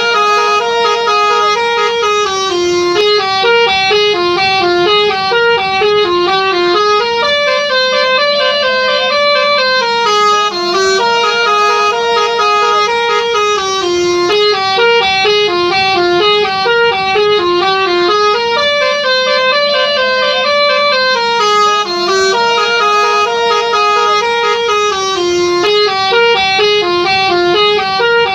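Bus telolet horn, a set of multi-trumpet air horns, playing a long tune of quick stepped notes, the same phrase repeating over and over.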